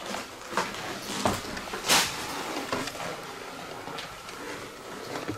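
Footsteps and scuffs on a wooden floor littered with papers and debris: a few irregular knocks and scrapes, the loudest about two seconds in.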